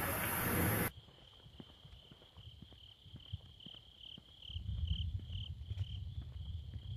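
Crickets chirping in a steady pulsing trill. A low rumble comes in about four and a half seconds in and carries on. It opens with a second of loud rushing noise that cuts off suddenly.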